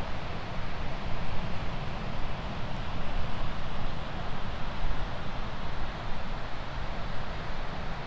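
Sea surf breaking and washing onto a sandy beach, a steady rushing with a gentle rise and fall, with wind buffeting the microphone as a fluttering rumble underneath.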